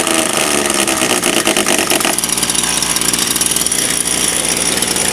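Stihl FS80 trimmer's small two-stroke engine running on a test run after a replacement carburetor was fitted, with the air filter housing off and the carburetor held on by two screws. Its revs shift, and the engine note changes abruptly about two seconds in.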